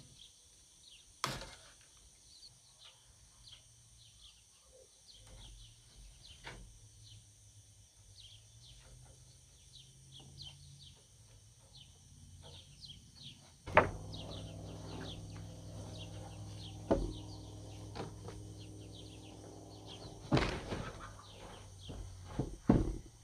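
Birds chirping steadily, with a few sharp clicks. About fourteen seconds in, a steady machine hum starts, with more sharp clicks and knocks over it.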